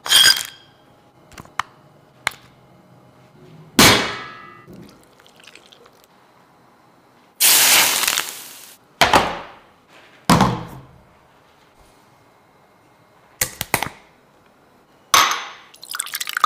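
Kitchen sounds in turn: sharp clinks and knocks of dishes, then a loud sizzle lasting over a second as hot oil is poured over shredded scallion and chili on steamed crabs, a few more knocks and clicks, and near the end tea splashing as it is poured into a glass mug.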